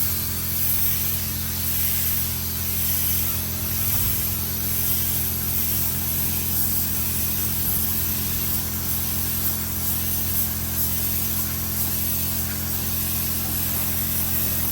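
Paint spray gun hissing steadily as it sprays paint, over a steady low mechanical hum.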